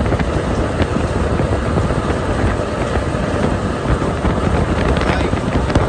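Restaurant kitchen rooftop exhaust fan running, heard close up at its opening: a steady, noisy rush of moving air with a low motor hum.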